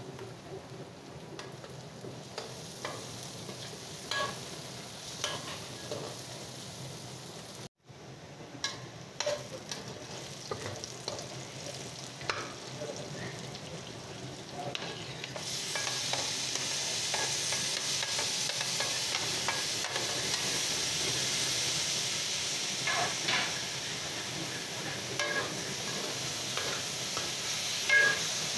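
Okra masala sizzling as it fries in a pan, stirred with a spoon that clicks and scrapes against the pan now and then. There is a momentary break about a quarter of the way in. The sizzle grows louder and brighter a little past halfway.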